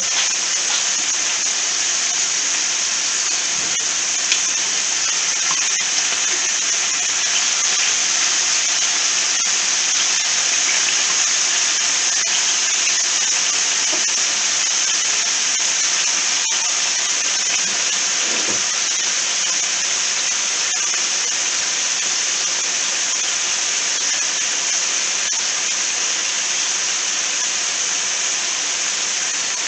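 Bite-sized chicken pieces frying in oil in a skillet, a steady sizzle.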